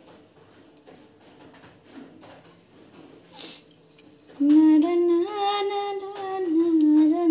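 A woman humming a slow tune, starting a little past halfway and holding steady notes that step up and down. Before it, faint clicks of a knife stirring food in a steel bowl.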